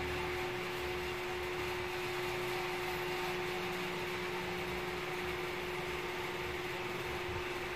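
Steady machine hum with one constant mid-pitched tone over a soft even hiss: a running household appliance in the room.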